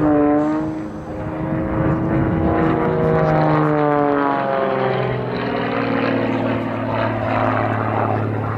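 Propeller and piston engine of an XtremeAir XA-41 aerobatic plane in flight. The engine note is loudest at the start, slides down in pitch over the first few seconds, then holds steady.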